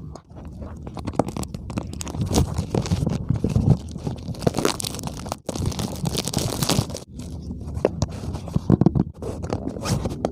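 Packaging being handled and opened by hand: irregular scraping and crunching with many small clicks.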